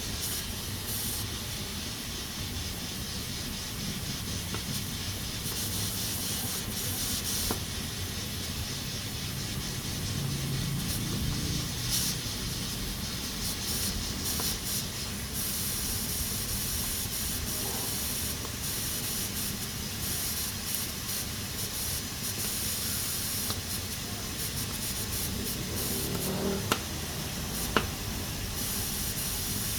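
Pressure cooker at full pressure, steam hissing steadily out of its valve, swelling and easing in surges. Two sharp clicks sound near the end.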